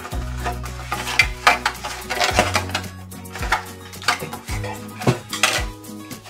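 Clattering and knocking of packaging being handled: a stiff insert tray lifted out of a presentation box and set down, with a quick succession of clicks and taps. Music with sustained low notes plays underneath.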